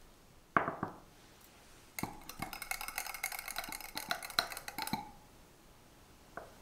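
Small wire whisk stirring a thick creamy mixture in a small glass jar, its wires clinking against the glass with a ringing tone: a couple of clinks about half a second in, then a rapid run of clinks for about three seconds, and one more near the end.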